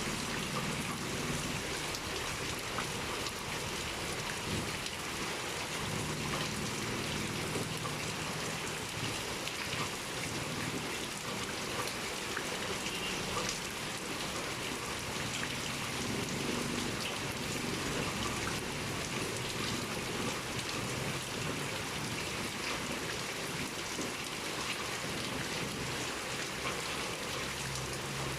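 Heavy rain pouring steadily: a dense, even hiss with many small individual drop hits throughout.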